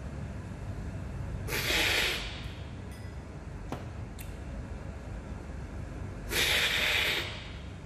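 Two loud, hissing slurps of coffee sucked off a cupping spoon, the cupper's way of spraying the brew across the palate to taste it, about a second and a half in and again about six seconds in. Light clinks of the spoon against the cupping glass fall between them.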